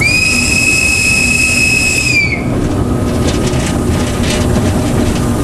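TEM2 diesel shunting locomotive's whistle sounded once, a steady high note for about two seconds that dips slightly in pitch as it cuts off. The locomotive's diesel engine runs steadily underneath, heard from inside the cab.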